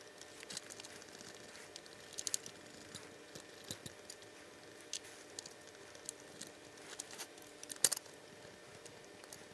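Cotton swab wet with rubbing alcohol scrubbing the motor of a small HO scale brass locomotive: faint, irregular scratching with light clicks, the sharpest click about eight seconds in.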